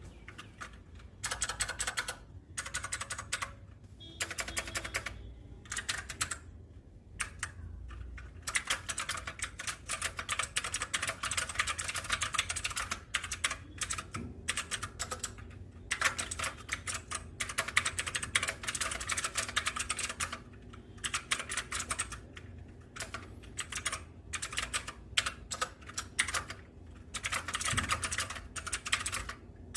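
HP GK400Y mechanical keyboard being typed on: fast runs of keystroke clicks broken by short pauses.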